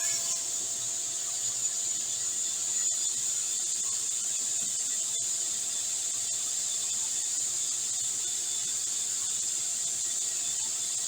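Sliding table saw's three-phase motor and blade spinning freely between cuts: a steady high-pitched whine over an even hum, with no cutting.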